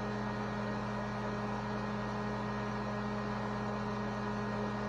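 A steady low hum with an even hiss, unchanging throughout.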